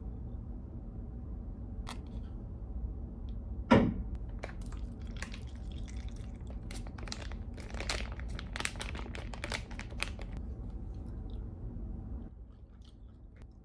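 A foil soup pouch crinkling and crackling as it is handled, torn and squeezed while the soup pours into a paper cup, with one sharp knock about four seconds in. Under it runs a steady low rumble from the ferry, which drops away near the end.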